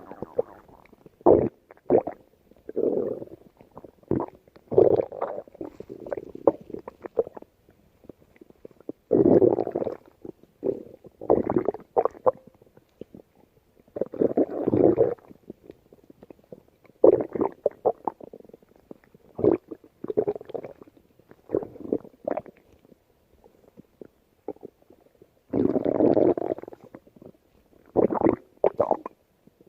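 Stomach growling and gurgling in irregular bursts, some long rumbles of a second or so and some short sharp gurgles, with brief pauses between.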